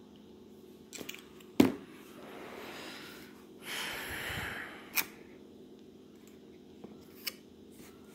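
Handling sounds as a smartphone is set down on its cardboard box: a sharp knock about a second and a half in, a few light clicks, and two short stretches of rustling.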